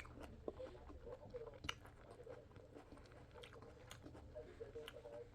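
Quiet chewing and biting of someone eating, with faint scattered mouth clicks.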